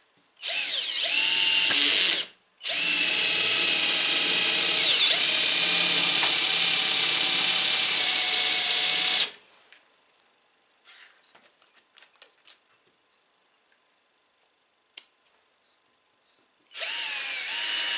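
Cordless battery drill driving a twist bit into a block of wood, its motor whining in two runs: a short one of about two seconds, then after a brief stop a longer one of about six seconds. After a few quiet seconds with light clicks, the drill starts again near the end.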